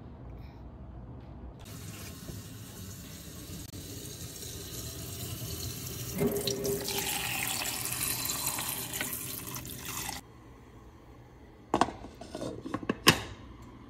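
Kitchen tap running, water pouring into a cooking pot and getting louder, then cutting off suddenly. A few sharp clinks follow as a glass lid is set on the pot, the last the loudest.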